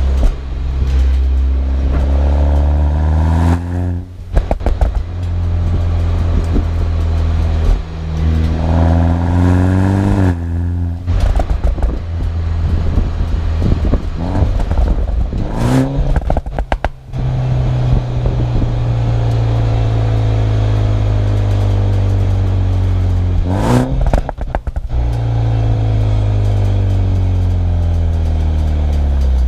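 BMW 125i's B48 turbocharged four-cylinder through a full M140i exhaust, accelerating hard through the gears: the pitch climbs three times, each climb cut by a quick upshift with sharp pops. Then it slows, the pitch falling steadily, with a burst of pops and crackles partway through.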